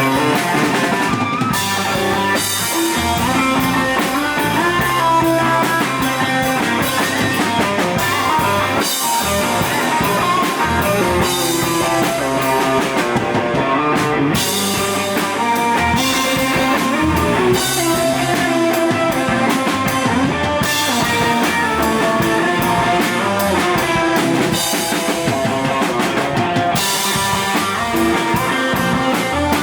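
Live rock band playing: electric guitar over a drum kit, loud and steady.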